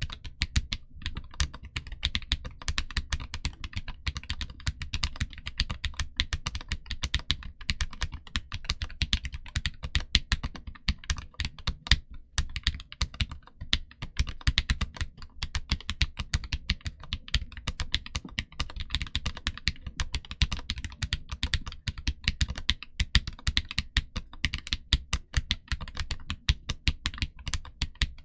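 Continuous fast typing on a stock KBDcraft Israfel #7 split ortholinear mechanical keyboard with Kailh Depth Charge low-profile switches, giving a deep-toned clacking.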